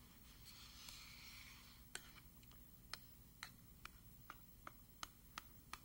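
Faint clicks of a metal fork's tines striking a metal baking sheet as they press decorative marks into the edge of a puff-pastry cover, sealing it onto the base. A soft hiss comes first; the clicks begin about two seconds in and quicken to about three a second.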